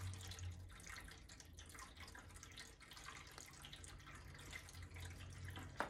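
Quiet room tone: a low steady hum under a faint trickling hiss, with light handling ticks and one sharp click near the end.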